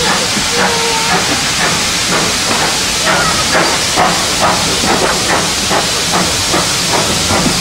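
Steam locomotive venting steam: a loud, steady hiss with small irregular sputters in it.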